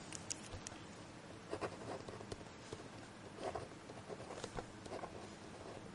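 Pen writing on paper: faint, short scratching strokes with small ticks between them.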